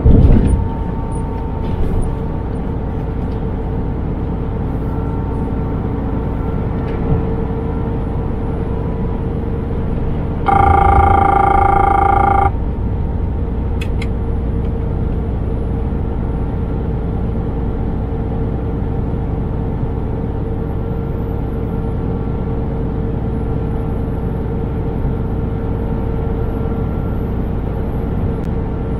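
Scania truck on the move, heard from inside the cab: steady engine and road rumble with a constant engine tone. A knock comes at the very start. About ten seconds in, a loud two-second sound of several pitches at once rings out over the rumble.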